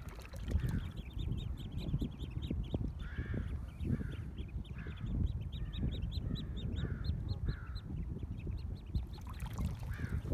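Common goldeneye ducklings peeping: a rapid, continuous run of short, high, upward-sliding peeps. From about three seconds in, a lower call repeats roughly every second for several seconds.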